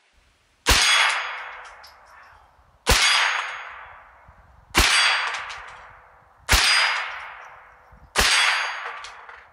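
Five rifle shots from a Ruger 10/22 takedown semi-automatic .22 LR rifle firing CCI Mini-Mag 40-grain rounds, about two seconds apart, each sharp crack trailing off over a second or so.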